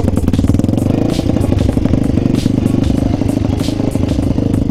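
Yamaha YZ450F single-cylinder four-stroke engine idling steadily through a worn Jardine exhaust with a large hole in it, leaving it pretty much straight-piped.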